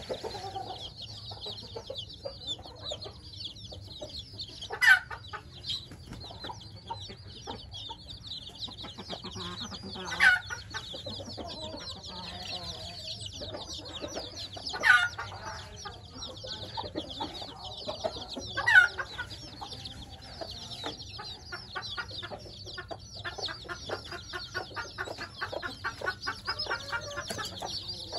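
A brood of week-old chicks peeping continuously in a high, busy chatter. A louder, lower call stands out about every four to five seconds.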